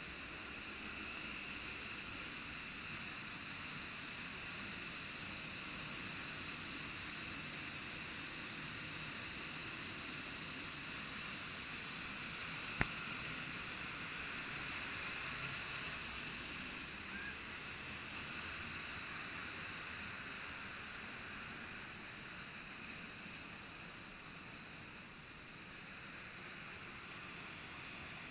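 Steady rushing of a waterfall, water pouring down into its plunge pool, with a single sharp click about halfway through.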